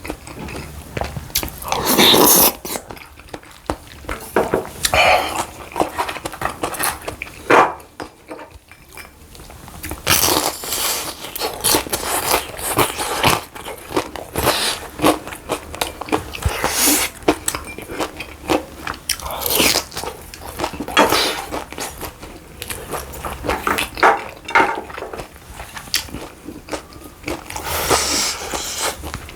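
Close-miked eating: irregular bites and chewing, some of them sharp and crisp, from a person eating pan-fried dumplings and acorn jelly rice soup.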